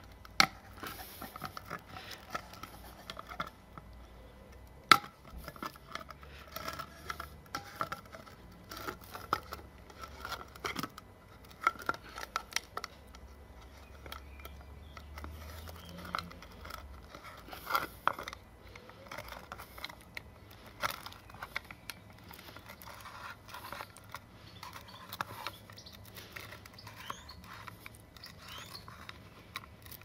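Can-opener blade of a stainless steel Sheffield-made British Army clasp knife cutting around the rim of a tin can lid in short levering strokes: a run of irregular metallic clicks and scrapes, with one sharp snap about five seconds in.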